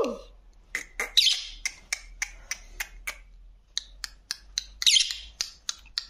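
Plum-headed parakeet giving two short, harsh squawks, one about a second in and one near the end, among a series of sharp clicks.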